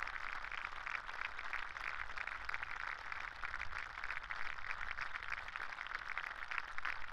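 Crowd applauding: a steady, dense round of clapping.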